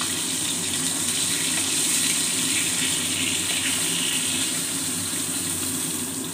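Parshe (goldspot mullet) frying in hot mustard oil in a kadai: a steady sizzle.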